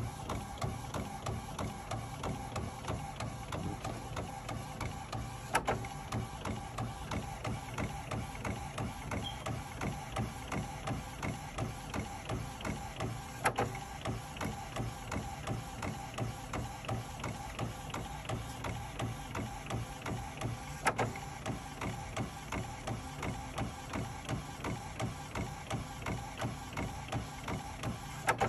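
Epson WorkForce WF-7210 inkjet printer printing onto PET film: the print head shuttles back and forth in a steady rhythm, about two passes a second. A sharp click stands out every seven or eight seconds, four times.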